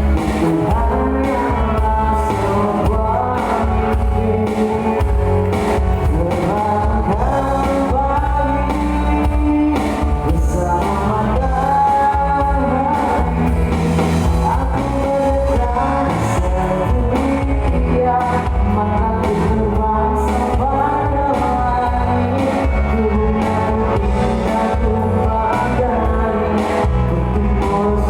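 Live pop band playing a song with a lead vocalist singing in Indonesian over steady bass and drums.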